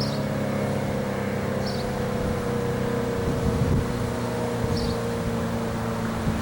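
ACA P-15 tornado siren sounding a steady tone whose pitch drifts slightly lower. Its rotator is broken, so the sound does not sweep.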